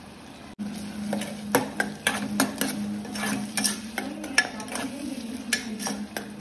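A spatula stirring and scraping in a pan, with irregular taps against the pan over the light sizzle of food frying in oil. A steady low hum runs underneath. The stirring starts about half a second in.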